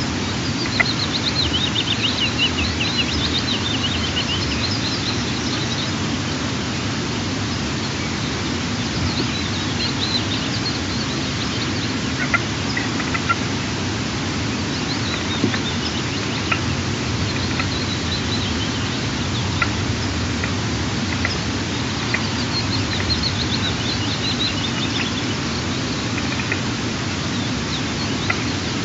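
Steady outdoor hiss with bursts of high, quick twittering bird calls coming and going several times, and a few faint clicks scattered through.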